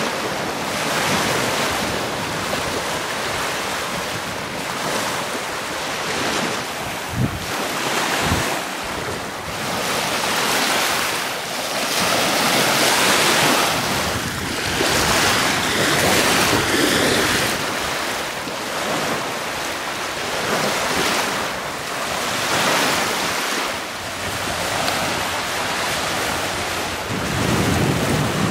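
Small Lake Michigan waves breaking and washing up a sand beach, coming in repeated surges every second or two, with wind blowing across the microphone. Two brief low thumps sound about seven and eight seconds in.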